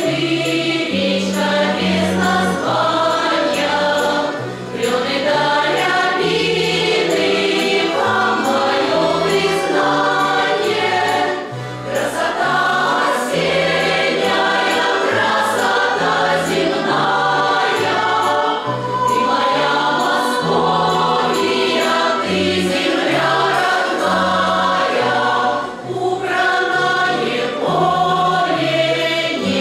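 Women's folk choir singing a Russian folk song in several voices, over a bass line of held notes, with short breaks between phrases.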